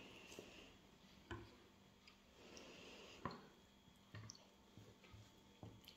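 Near silence with a few faint, scattered clicks of a fork against a plate as fajita filling is worked onto a tortilla.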